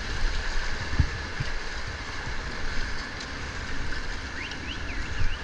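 Rushing whitewater washing around an inflatable raft, a steady noisy wash over a low uneven rumble, with a sharp knock about a second in.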